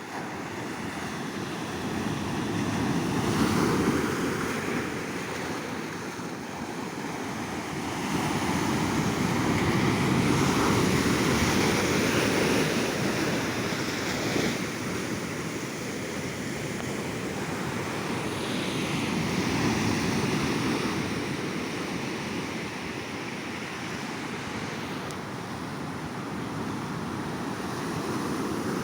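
Sea surf washing onto a beach, a continuous rush that swells and ebbs as waves break, with the loudest surges about four seconds in, around ten to twelve seconds in, and near twenty seconds in.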